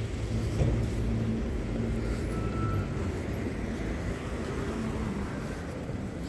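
Road traffic on a city street: cars driving past with a steady low rumble of engines and tyres.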